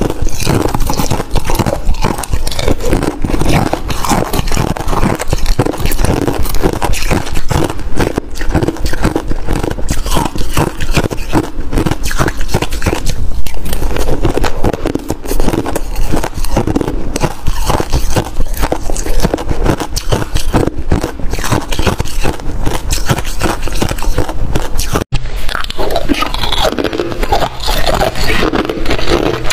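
Close-miked crunching and chewing of freezer frost, a dense run of crackly bites with a spoon scraping through the frost. There is a brief gap about 25 seconds in, and the frost crunching carries on after it.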